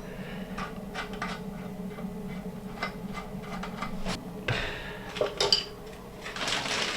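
Small metal clicks and clinks as a faucet spout is fitted and screwed onto the mixer tap body, with a sharper knock partway through.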